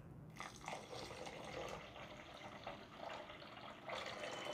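About 400 ml of water being poured onto sugar in a pot to make sugar syrup: a faint pouring and trickling, louder near the end.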